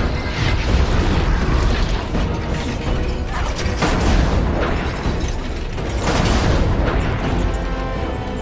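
Huge iron gears of a heavy machine grinding and clanking, with deep booms over a constant low rumble and a music score underneath.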